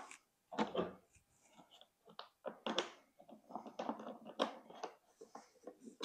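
The plastic side panel of a Honda portable generator being pressed back into place and its screw turned in with a screwdriver: a scattered series of light clicks, taps and scrapes.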